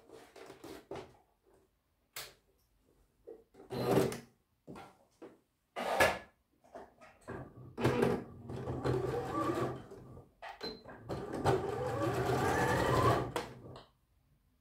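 bernette b38 computerized sewing machine stitching fabric in short runs, starting and stopping four times. Its motor whine rises in pitch as it speeds up, and the longest run, of about two seconds, comes near the end.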